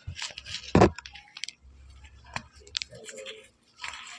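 Chalk being handled and broken: scattered crisp clicks and crackles, with one heavy thump a little under a second in.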